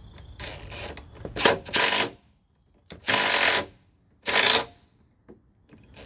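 Cordless impact driver hammering in short bursts, about four of them with pauses between, as it drives in the Jeep ZJ fog light's mounting screw.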